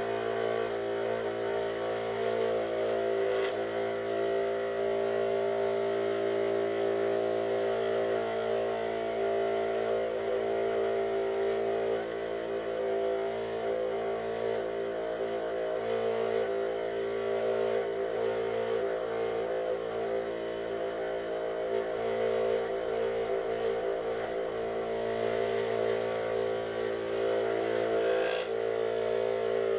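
Benchtop scroll saw running steadily, its blade cutting curves in thin 5 mm plywood.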